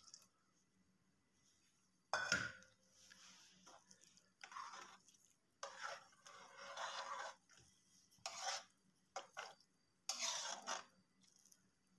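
A metal spoon stirring grated carrots and milk in an aluminium pot, in irregular bursts of scraping and clinking against the pot. A sharp knock about two seconds in is the loudest sound.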